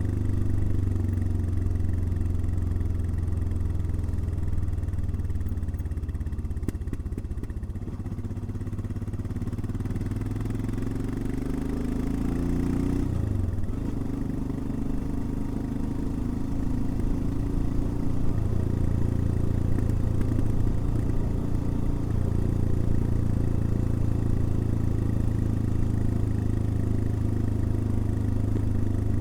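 Royal Enfield Himalayan single-cylinder motorcycle engine running under way. Its pitch climbs for a few seconds, then drops sharply about halfway through, as at an upshift, and then holds steady.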